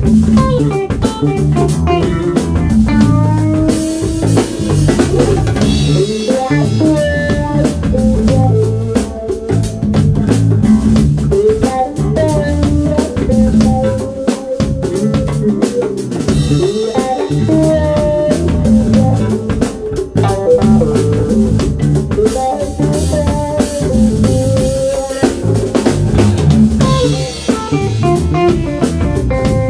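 Live band playing: electric guitar over bass guitar and a drum kit, with cymbal crashes now and then.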